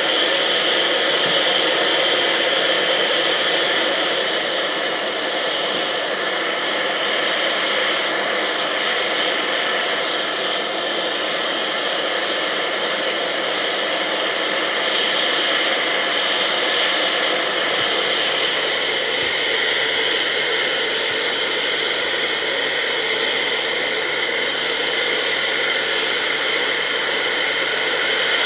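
Steam hissing from an LNER V2 steam locomotive: a loud, steady rush of escaping steam that holds unchanged throughout.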